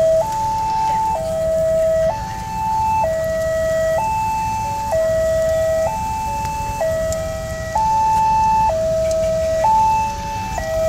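Railway level-crossing warning siren sounding a two-tone hi-lo wail, switching between a lower and a higher pitch about once a second, warning that a train is approaching. A steady low rumble runs underneath.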